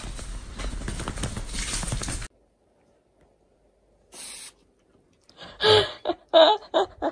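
Dog barking four times in quick succession, short pitched barks close together near the end. Before that there is a steady hissing noise that cuts off after about two seconds, and a brief rustle about four seconds in.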